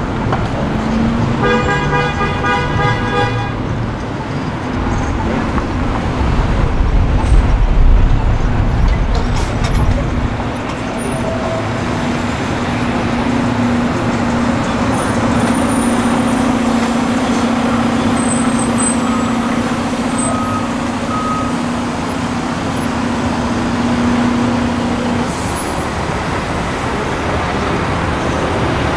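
Busy city street traffic. A car horn sounds for about two seconds near the start, a heavy vehicle rumbles past around seven to ten seconds in, and a steady low drone runs from about twelve to twenty-five seconds.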